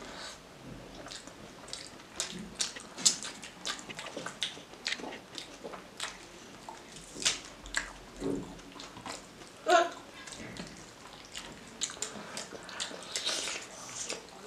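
Close-miked eating sounds: chewing and biting of pork curry and rice, with irregular sharp wet smacks and clicks.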